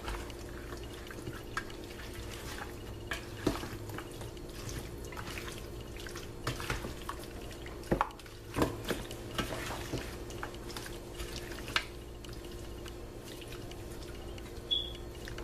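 Hands massaging barbecue sauce and seasonings into raw chicken pieces: irregular soft wet squishes and small clicks over a steady low hum. A brief high beep sounds near the end.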